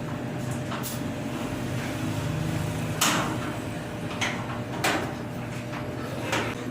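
Several knocks and scrapes of metal dryer parts being pushed and handled while a belt is refitted, over a steady low hum. The loudest knock comes about three seconds in.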